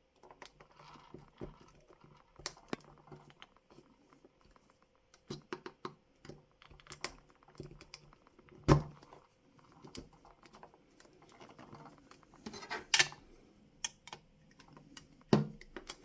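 A small tack-removing tool levering and scraping under the plastic glazing and roof of a model coach, making irregular light clicks, taps and scrapes. The sharpest clicks come about nine and thirteen seconds in.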